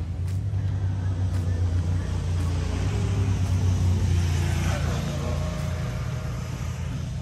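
A motor vehicle passing on the road: a low engine rumble grows louder, peaks about halfway through with its pitch falling, then fades.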